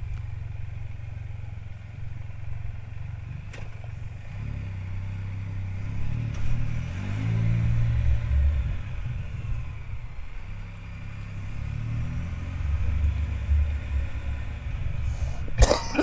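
Can-Am Spyder F3's three-cylinder engine running at low speed, its revs rising as it pulls away about six seconds in and again around twelve seconds. A brief, loud sharp noise just before the end.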